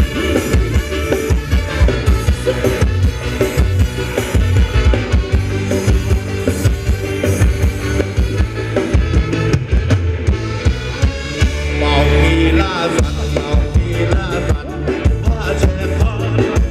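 Live band playing Thai ramwong dance music, loud, with a steady driving drum beat; a held, wavering melody line comes in about three-quarters of the way through.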